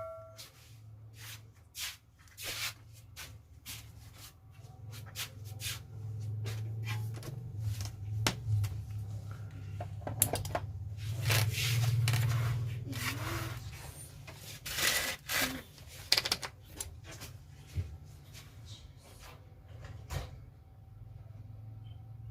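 Scattered clicks, taps and rubbing from tools and parts being handled on a stabilizer's circuit board, over a low hum that grows louder in the middle.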